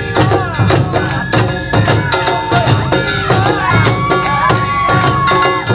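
Live Awa Odori festival music: taiko drums and a metal kane gong beat a quick, steady rhythm while a bamboo shinobue flute plays high, bending notes, holding one long note in the second half.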